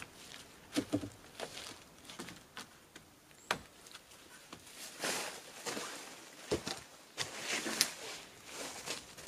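Wooden poles knocking against the log roof of a shed as they are handled and laid in place: a few sharp, scattered knocks with rustling and scraping in between.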